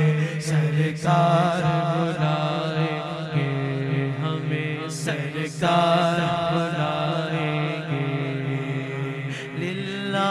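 Men singing a naat unaccompanied into handheld microphones, drawing out long wordless melismatic phrases over a steady low drone that shifts pitch twice.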